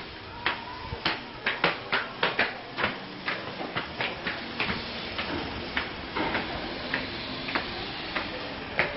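Footsteps of sandals slapping on concrete stairs going down, a quick run of about three steps a second that thins out about halfway through.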